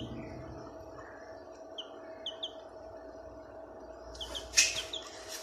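Young caged birds giving short, high chirps, singly and in quick pairs, over a steady low hum. A sharp knock about four and a half seconds in is the loudest sound.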